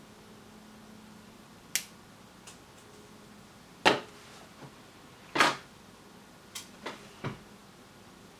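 Sharp clicks and knocks from small electronic parts being handled on a workbench, about six in all. The two loudest come about four and five and a half seconds in, with lighter clicks around them.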